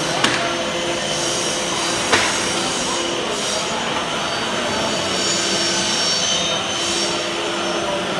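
Several dust extractors and power tools running together, a steady loud whine with a hum in it. Two sharp knocks sound, one just after the start and one about two seconds in.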